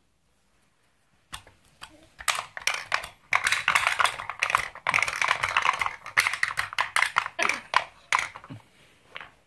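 Wooden toy pieces clattering in a quick, irregular run of clicks and knocks as a toddler handles a wooden pound-a-ball tower. It starts about a second in and dies away near the end.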